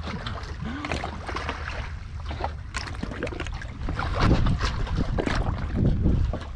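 Seawater splashing and sloshing as a swimmer ducks under and swims beneath a floating fish raft, louder from about four seconds in, over a steady low rumble.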